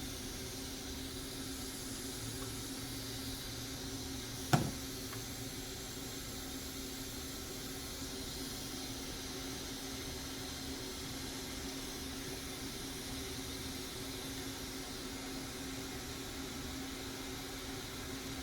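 Hot air rework station blowing steadily with a soft hiss over a low hum, reheating the power connector's solder joints on a graphics card board. A single sharp click about four and a half seconds in.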